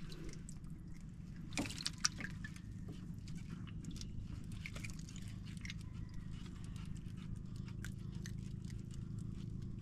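Faint water drips and light clicks as a fishing handline and a hooked fish are handled aboard a wooden outrigger boat, over a steady low hum. Two slightly louder clicks come about a second and a half in.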